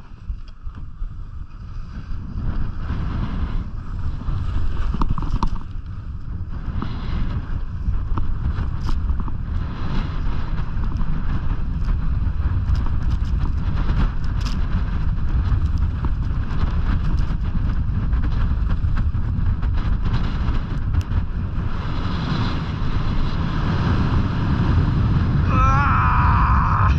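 Wind rushing over a GoPro's microphone while skiing downhill, mixed with skis sliding and scraping on snow; it builds over the first few seconds as speed picks up and then stays loud. A short wavering higher sound comes in near the end.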